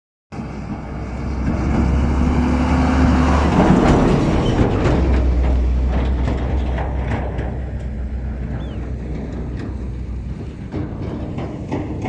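Dump truck driving past on a dirt road: the engine and tyre noise with a deep rumble grows over the first few seconds, peaks about four seconds in, then slowly fades.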